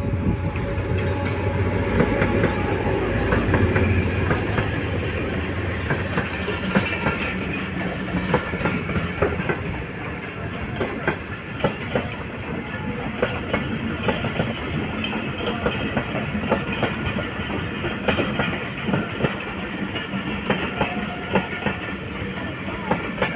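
A train running on the track: a low engine drone in the first few seconds, then the wheels clacking repeatedly over rail joints above a steady rumble.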